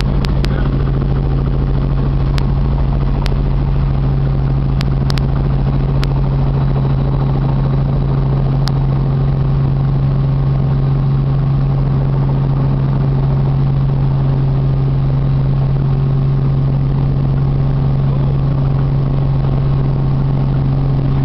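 Helicopter engine and rotor running in a steady low drone, heard from inside the cabin, with a few light clicks in the first several seconds.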